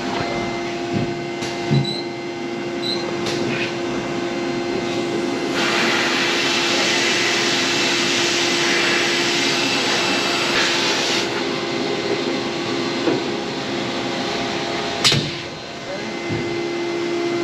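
Abrasive sandblasting at about 40 psi: the blast nozzle hisses with air and grit for about five seconds in the middle, then cuts off suddenly, over a steady machine hum. A single sharp knock comes near the end.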